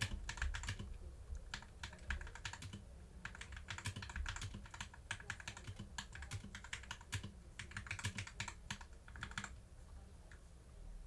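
Typing on a Glorious GMMK TKL mechanical keyboard fitted with Gateron Milky Yellow Pro linear switches and Durock stabilizers: fast, irregular runs of key clacks with short pauses, easing off briefly near the end.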